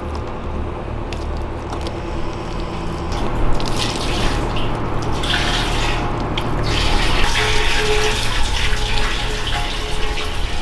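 Water pouring from an excavator bucket into the opening of a thick steel box, splashing and filling it, growing louder about three seconds in as the pour picks up. Under it the excavator's engine runs with a steady hum.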